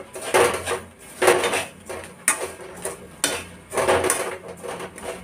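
A metal spoon stirring peanuts through hot salt in a metal kadai, with rasping scrapes and a gritty rattle of nuts and salt grains against the pan, in strokes about once a second. The peanuts are being dry-roasted in salt.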